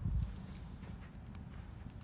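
Campfire with a log burning: scattered sharp crackles and pops over a low rumble, with a slightly louder knock at the start.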